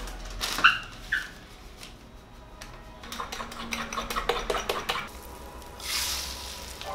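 Two sharp clinks of dishes, then a utensil beating eggs in a bowl in a fast run of clicks, and beaten eggs poured into a hot frying pan with a short sizzle near the end.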